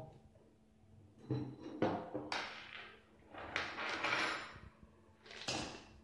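Plastic plates and small stainless-steel pots and lids being handled on a table: a few knocks and short scraping, clattering bursts.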